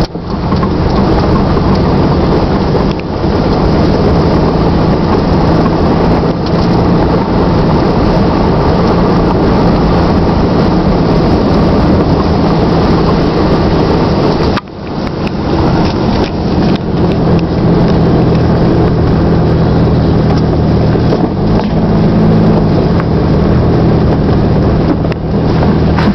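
1997 Jeep Grand Cherokee ZJ's 4.0 L straight-six exhaust, run through a glasspack in place of the factory muffler, while driving at a steady pace. The engine note drops off sharply for a moment a little past halfway, then comes back up.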